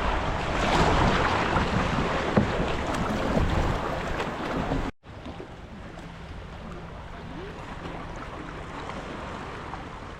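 Sea water splashing and wind buffeting the microphone aboard a kayak. About five seconds in, the sound drops out for a moment and comes back quieter and calmer.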